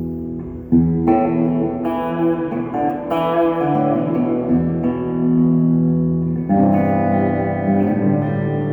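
Fender Stratocaster electric guitar with Alnico 5 single-coil pickups, played clean: chords and notes picked one after another, each ringing on into the next.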